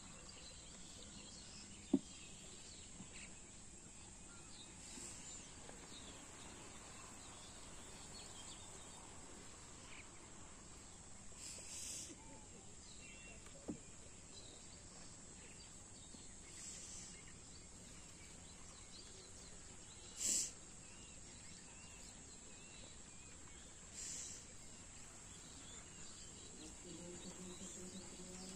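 Faint open-air ambience over flooded marshland: a steady high insect drone, broken by two sharp knocks and a few short hissing rushes, the loudest about two-thirds of the way in.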